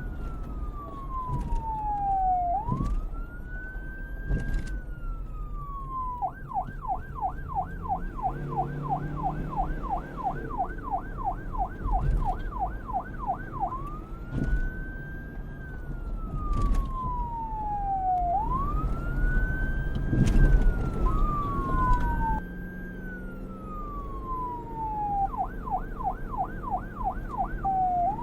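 Police car's electronic siren switching between a slow wail, each sweep rising and falling over a few seconds, and a fast yelp of about six quick sweeps a second. A steady low rumble runs underneath.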